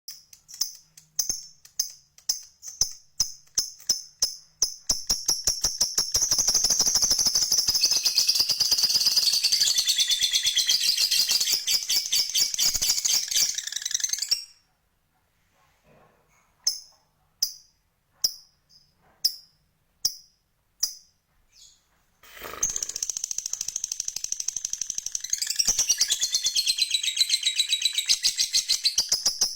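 Lovebird calling with high, sharp chirps. The first few seconds have separate chirps at about two a second, which quicken into a long, rapid, unbroken chatter lasting several seconds. After a brief pause with only scattered chirps, the long chatter starts again about three quarters of the way through.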